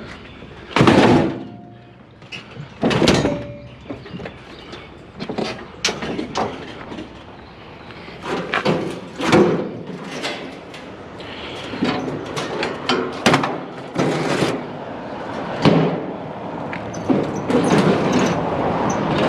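Scrap metal being handled and shifted: a string of separate clanks, thuds and scrapes, several of them ringing briefly.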